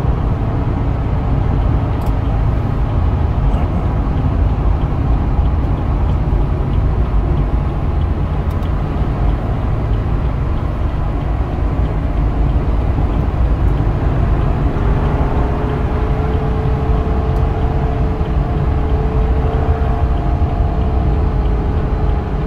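BMW 328i's turbocharged 2.0-litre inline-four running continuously under hard driving at track speed. It is heard inside the cabin together with tyre and road rumble. A steady engine tone comes through more clearly in the second half.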